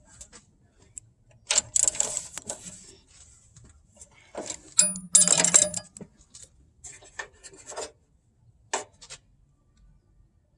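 Metal objects clinking and rattling in two loud bursts, about one and a half and five seconds in, with scattered single clicks between and after.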